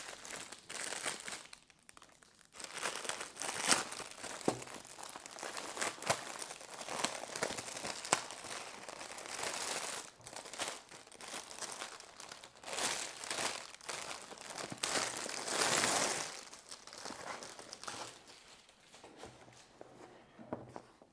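Clear plastic film crinkling and crackling as it is peeled off and crumpled around a hard carry case, in irregular bursts with sharp crackles; it dies down near the end.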